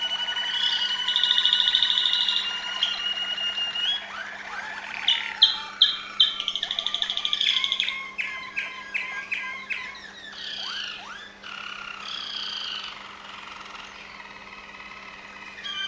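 Waterslager (Malinois) canary singing: long held whistled notes and fast trills, then a run of short, sharp clipped notes about five to ten seconds in, with the song quieter toward the end.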